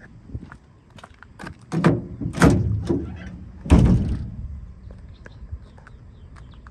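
Pickup tailgate on a 2008 Ford F-150 being opened. The latch clicks and clunks twice, then the tailgate drops and stops hard on its side cables with one loud metal clunk about four seconds in, ringing briefly.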